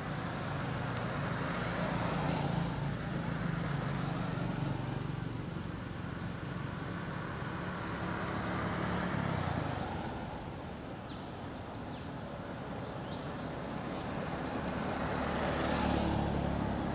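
Outdoor ambience: a low rumble that swells and fades twice, with a steady high-pitched whine through the first half.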